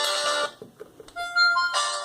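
Polyphonic ringtones of a BenQ A500 clamshell mobile phone. One melody cuts off about half a second in; after a short pause the next ringtone starts with a few single notes and then a fuller, chorded tune near the end.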